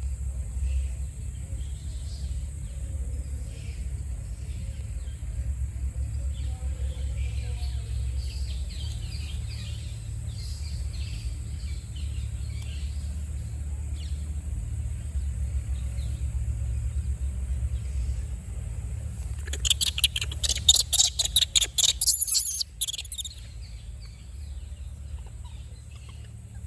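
Outdoor ambience: a steady low rumble with faint scattered chirps. About twenty seconds in comes a loud burst of rapid crackling or rustling lasting about three seconds.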